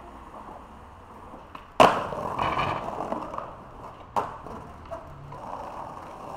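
Skateboard hitting the ground with a sharp clack about two seconds in, then its wheels rolling over rough pavement, with a second, lighter clack around four seconds in.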